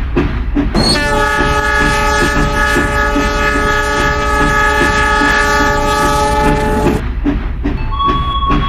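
Train horn sounding one long chord blast of about six seconds, starting about a second in, over the rhythmic clatter of a moving train.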